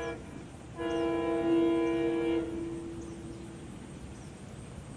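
A SEPTA train's horn sounds out of sight: a short toot, then a longer blast of about a second and a half that fades away.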